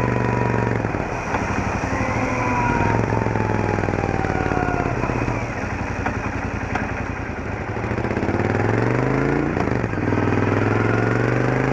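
Royal Enfield Interceptor 650's 648 cc parallel-twin engine through its stock exhaust, riding at low speed. The bike eases off with a thin gear whine falling in pitch, then accelerates with the engine note rising, a gear shift about nine and a half seconds in, and rising again.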